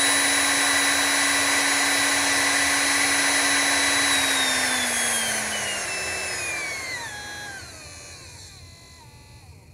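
Large 997-size brushed DC motor running unloaded at high speed: a steady whine from its internal fan, brush commutation and the shaft rubbing in its bushings. About four seconds in, the pitch falls steadily and the sound gets much quieter as the motor slows with its supply voltage turned down.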